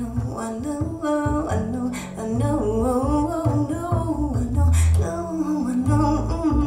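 A recorded song playing over bookshelf speakers: a singing voice over plucked guitar and a deep, full bass line.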